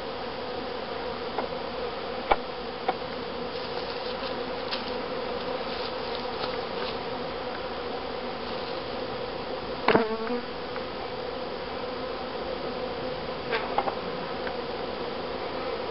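Honeybees from a package being installed into a top bar hive, buzzing in a steady dense hum. A few short sharp taps cut through it, the loudest about two seconds in and about ten seconds in.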